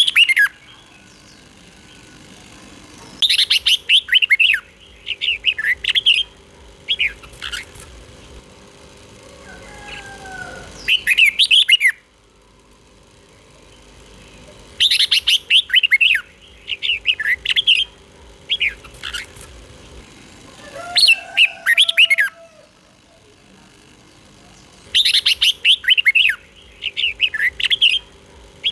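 Red-whiskered bulbul singing: short phrases of quick, bright, warbled notes, repeated every few seconds with pauses between.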